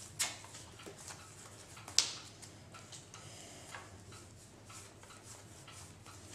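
Quiet handling of sleeved Magic: The Gathering cards on a playmat: a few scattered sharp clicks and taps as cards are drawn, held and laid down, the loudest about two seconds in.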